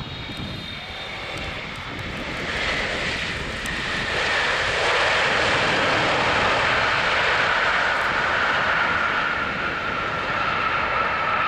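Boeing 777-300ER's GE90-115B turbofan engines running as the airliner rolls out just after touchdown, spoilers raised. The engine noise swells about four to five seconds in and then holds loud, with a high fan whine that slowly falls in pitch.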